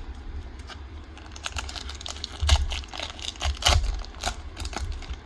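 Trading cards and card packs being handled on a table: a quick run of light clicks, flicks and rustles, with two sharper snaps in the middle.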